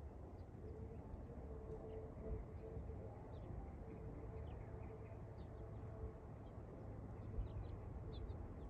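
Quiet outdoor ambience: a steady low rumble, a faint steady hum through the first part, and scattered short, high bird chirps.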